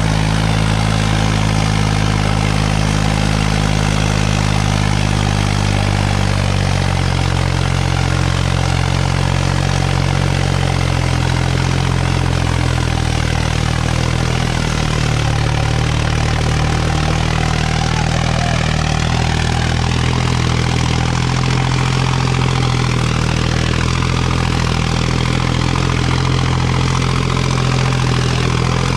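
A Farmtrac tractor's diesel engine running steadily and loudly, its pitch shifting slightly a few seconds in and again about halfway.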